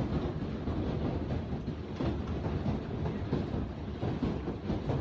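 Heavy hail pelting down: a dense, irregular clatter of many hits that runs on without a break.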